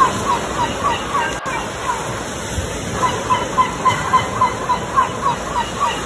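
Sea bird calling in a fast run of short, repeated notes, about four a second, with a pause of a second or so in the middle, over the steady rush of ocean surf.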